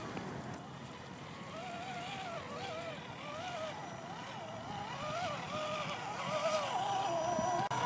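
Axial SCX10 Deadbolt RC crawler's electric motor whining, its pitch rising and falling over and over as the throttle is worked.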